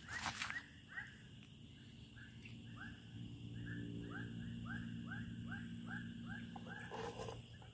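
A run of short, arched chirping calls from a small animal, about two to three a second, over a faint low hum, with a brief rustle at the start.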